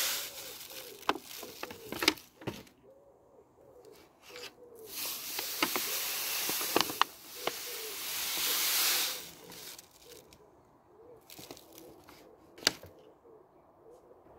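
Granulated sugar pouring from a paper bag onto plums in a stainless steel pot: a hiss of falling crystals that comes in several pours, loudest from about five to nine seconds in, with scattered light clicks.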